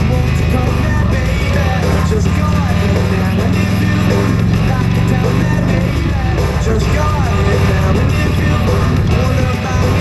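Rock music playing, with a singing voice over a steady low bass.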